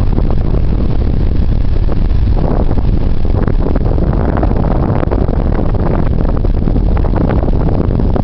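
Wind buffeting the camera microphone: a loud, steady low rumble with gusts flaring up now and then.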